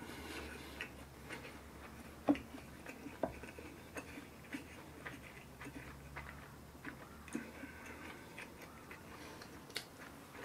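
Quiet eating sounds: scattered light clicks of wooden chopsticks against a ceramic rice bowl and plates, the two sharpest about two and three seconds in, with faint chewing. A low steady hum underneath fades out about eight seconds in.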